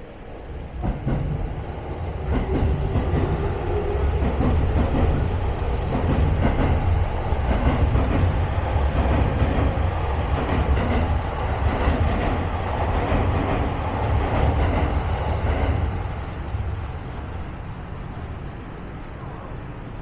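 A train passing close by: a heavy rumble of wheels on rails with a clattering beat, which swells about a second in, holds, then dies away over the last few seconds.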